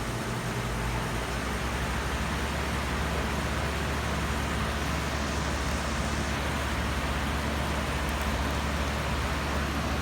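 Two-ton Lennox T-Class heat pump running in cooling mode: a steady low hum under a broad rush of air, building a little about a second in.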